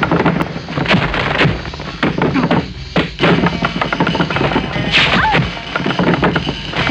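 Kung fu fight sound effect: a rapid run of punch and kick hits over background music.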